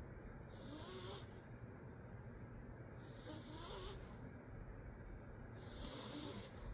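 Bichon Frise snoring in its sleep: three raspy snores about two and a half seconds apart. The owner calls it snoring with sleep apnoea.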